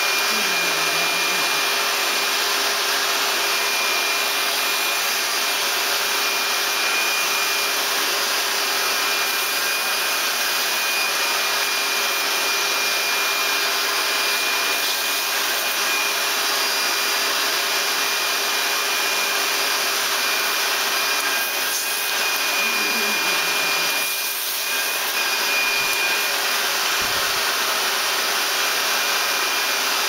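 Vacuum cleaner running steadily: a constant rushing noise with a steady high whine.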